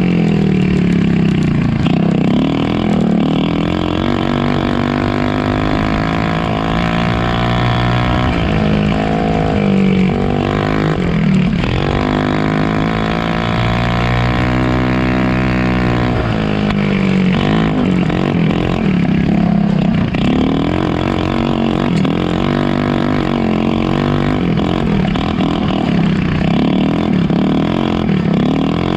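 Polaris RZR 170 youth side-by-side's small single-cylinder four-stroke engine running under throttle, its pitch rising and falling over and over as the driver speeds up and lifts off.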